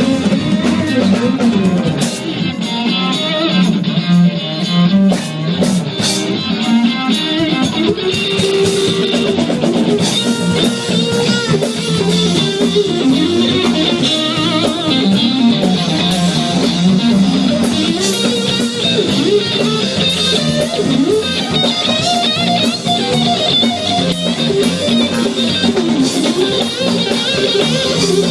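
Live band music with electric guitar carrying a melodic line over drum kit.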